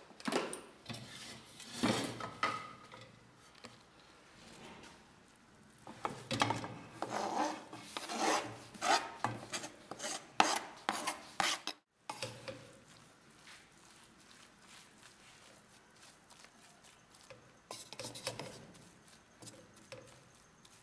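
A spatula scraping and stirring grated gourd around an aluminium karahi, in uneven runs of rasping strokes with a brief gap about twelve seconds in. The gourd is being cooked plain, without fat, so that its water dries off.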